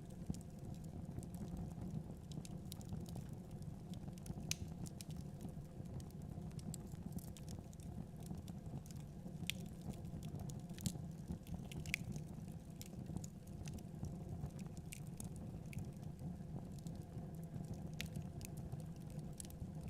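Wood fire burning in a fireplace: logs crackling with irregular sharp pops and snaps over a steady low rumble of the flames.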